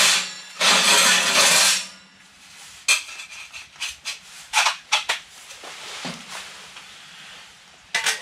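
A canvas bell tent's door zipper pulled open in two long rasping strokes, followed by scattered light clicks and knocks.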